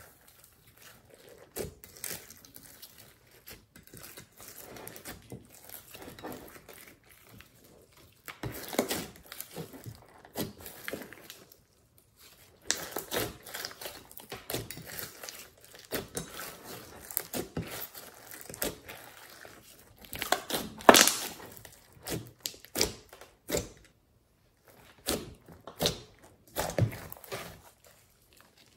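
Hands kneading, squeezing and stretching a large mass of glittery slime, giving irregular sticky crackles and squishes with small pops. The loudest burst comes a little after two-thirds of the way through.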